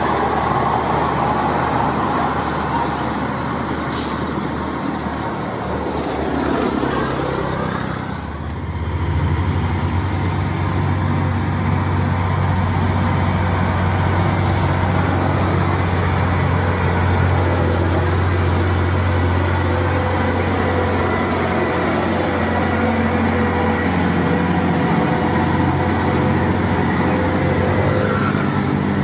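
Heavy diesel trucks passing close by on a highway. After a short lull about eight seconds in, the diesel engine of a tarp-covered Hino truck drones steadily as it approaches and goes past.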